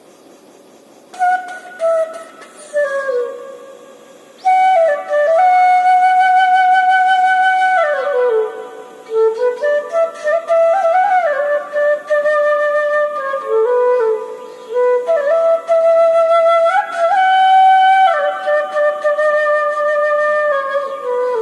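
Solo flute playing a slow melody, with notes held and sliding from one pitch to the next, coming in about a second in.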